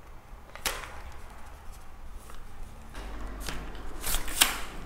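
Digitech camera tripod being handled as its telescoping legs are extended: a sharp click under a second in, then a cluster of clicks and knocks near the end, the loudest of all.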